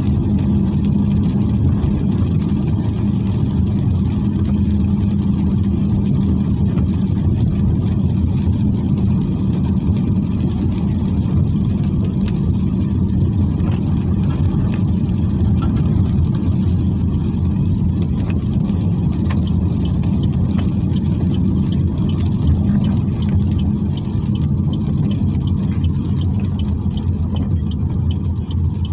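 Steady low drone of a car's engine and tyres heard from inside the cabin while driving on a rain-soaked road, with an even hiss of wet road over it.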